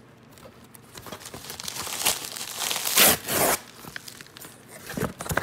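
Cardboard shipping box being pulled open and a padded bubble mailer slid out of it: paper and cardboard rustling and crinkling that builds to a loud rip about three seconds in, then softer rustles near the end.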